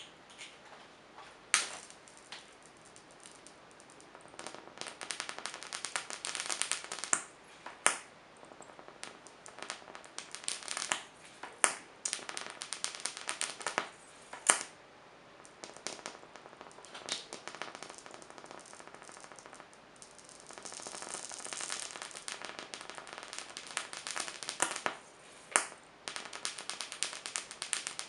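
High-voltage arc from a flyback transformer driven by a ZVS (Mazzilli) driver, crackling and sizzling in long stretches as the arc is drawn out between the electrodes, broken by several loud, sharp snaps as sparks jump the gap.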